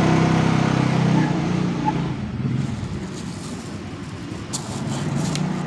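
A motor vehicle's engine running with a steady low hum, loudest at first and fading away over the first few seconds.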